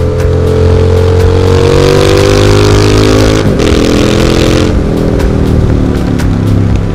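Triumph Street Scrambler 900's parallel-twin engine through aftermarket Zard exhaust pipes, heard from the rider's seat. The engine note rises as it pulls, breaks and drops about three and a half seconds in with a quick upshift, then falls away as the throttle closes.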